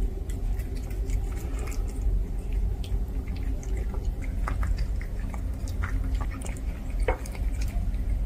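A tabby cat eating wet food from a ceramic bowl, with irregular small wet chewing and licking clicks over a steady low hum. The cat is eating again, its appetite back after illness.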